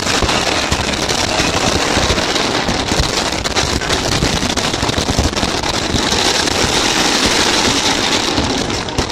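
A dense barrage of aerial firework shells bursting many at once, a continuous volley of bangs with glittering crackle.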